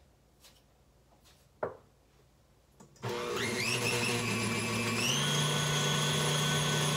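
KitchenAid stand mixer switched on about three seconds in, its motor whine rising as it spins up. About two seconds later it steps up to a higher speed and runs steadily. There is a single light knock before it starts.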